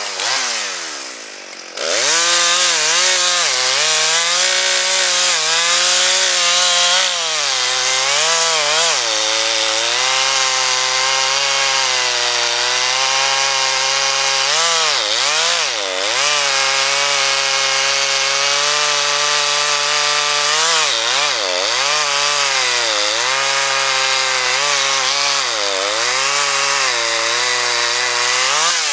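Chainsaw cutting through pine wood at high revs. Its pitch sags repeatedly as the chain bites under load, then recovers. It eases off briefly at the start and comes back up to full throttle about two seconds in.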